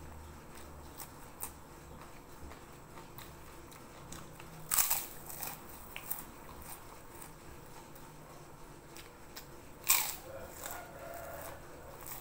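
Close-up eating sounds of someone biting into crispy kerupuk crackers: two loud crunches about five seconds apart, with small crackles and quieter chewing between.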